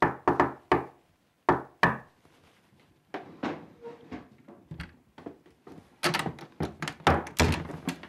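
Knocks and thuds on a wooden panelled door: three sharp knocks at the start, two more about a second and a half in, scattered light clicks, then a quick run of knocks from about six seconds in.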